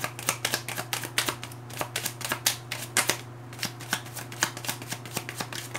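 A deck of tarot cards being shuffled by hand: a rapid run of crisp card flicks, with a brief pause about three seconds in.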